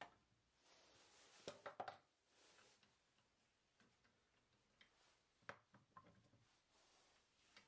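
Faint, scattered metallic clicks and rattles from a wood lathe's four-jaw chuck being handled by hand while a turned wooden button blank is taken out. The busiest run of clicks comes about a second and a half in, with a few more around five and a half to six seconds.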